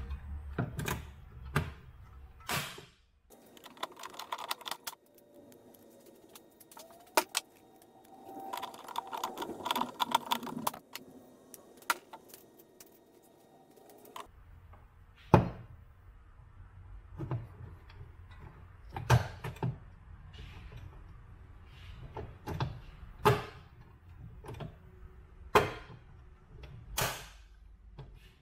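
Hand rivet gun setting pop rivets: a series of sharp separate clicks and snaps, one to two seconds apart in the second half, with small metal parts clattering in between.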